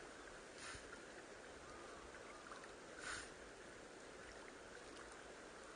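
Faint water lapping against the hull of a small wooden boat, with two soft washes a couple of seconds apart.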